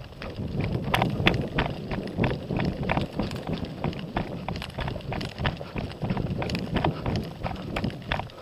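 Running footsteps on dry grass and dirt, a quick run of thuds, with wind rumbling on the body-worn microphone.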